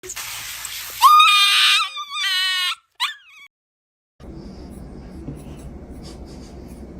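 Dog whining in high, drawn-out cries: two long ones, the second wavering, then a short rising-and-falling one. The sound then cuts out, leaving faint low background noise.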